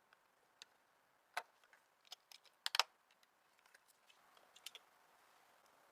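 Faint, scattered light clicks and taps of small hard computer parts being handled and fitted during a PC build, with a louder cluster of clicks just under three seconds in.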